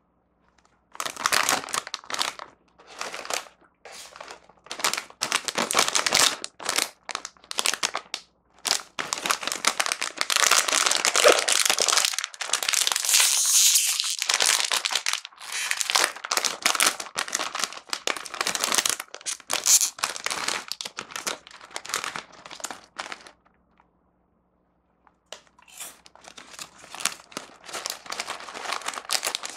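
Crinkly plastic snack wrappers being handled and squeezed, with a long, loud stretch in the middle as a small plastic candy packet is pulled open. The crinkling stops briefly, then starts again near the end.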